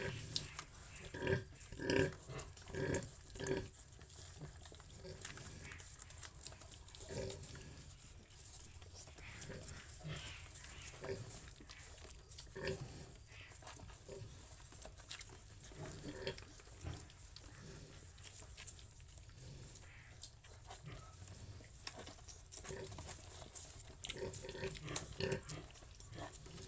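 Sow grunting in short, evenly spaced grunts, about two a second, for the first few seconds, then sparser grunts, with a livelier run again near the end. A steady high hiss runs underneath.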